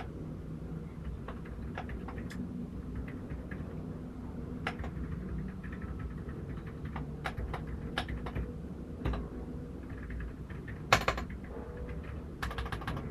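Keystrokes on a mechanical keyboard: scattered, fairly soft key clicks, with a loud burst of clicks about eleven seconds in and a quick run of keystrokes near the end.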